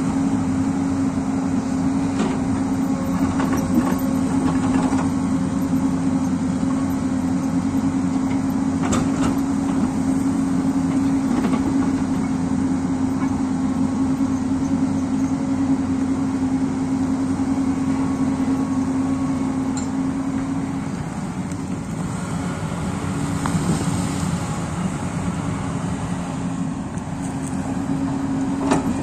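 Hyundai 220LC crawler excavator's diesel engine running steadily under load as it digs the hillside, with a few knocks of the bucket on rock and soil. The engine's steady hum eases about twenty seconds in.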